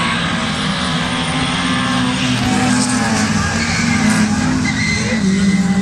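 Engines of historic racing cars running hard at speed, with more than one engine note overlapping as the cars race past. The sound gets a little louder near the end.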